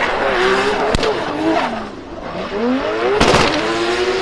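Racing car engine sound, revving. Its pitch sinks over about two seconds and then climbs again, with a sharp knock about a second in and a short noisy burst a little after three seconds.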